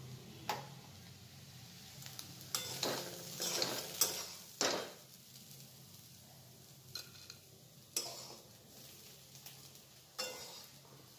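A metal spatula scrapes and knocks against a metal wok while cooked onion-and-papad shaak is scooped out into a serving bowl. The scrapes come thick from about two and a half to five seconds in, with single knocks near eight and ten seconds.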